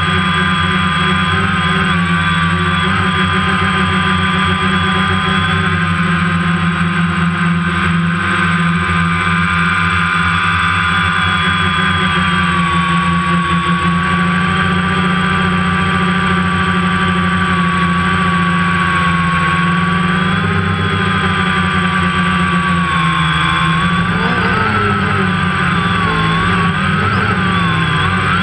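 Camera drone's motors and propellers whining steadily, heard through the drone's own microphone, the pitch bending slightly as it manoeuvres and wavering more near the end.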